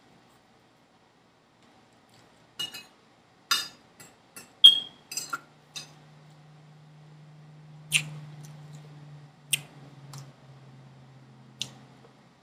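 A metal fork clinking and scraping on a metal tray while eating, about ten sharp clicks, the loudest about 4.7 s in with a short ring. A low steady hum comes in about 5 s in and runs on until near the end.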